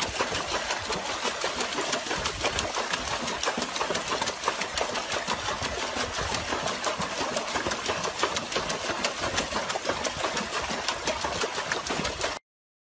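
Dog paddling its front legs fast in a plastic tub of water, a dense, rapid, continuous splashing and churning. It cuts off suddenly near the end.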